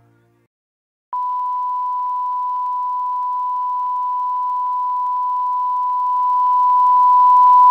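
A steady electronic test tone, one pure beep-like pitch held without a break. It starts about a second in after a brief silence and grows a little louder near the end.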